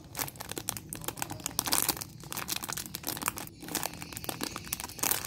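Clear plastic packaging crinkling as a hand squeezes and turns a bagged squishy foam toy: a dense, irregular run of small crackles.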